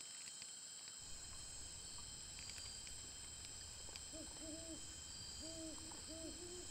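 Night rainforest ambience: a steady, high insect drone, faint. From about four seconds in, a night animal gives short, even-pitched hooting notes, mostly in pairs.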